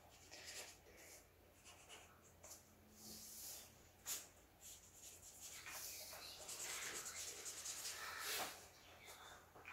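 Felt-tip marker scratching back and forth on paper as an area is coloured in, faint, with a short tap about four seconds in.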